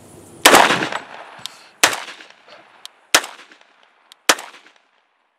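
A 10-inch-barrelled 300 Blackout AR pistol firing four single shots, a little over a second apart, each with a short ringing tail.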